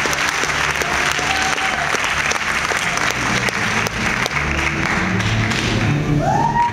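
Audience applauding over music, with a short rising tone near the end.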